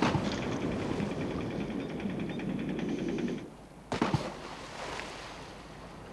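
Divers jumping into the sea: a sudden splash, then a few seconds of churning, bubbling water, and a second splash about four seconds in.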